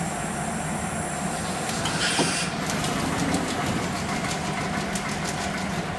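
FOREL vertical insulating-glass line running with a steady mechanical hum from its motors and conveyor rollers as a glass sheet is carried through. A high whine stops about two and a half seconds in, and light ticks follow.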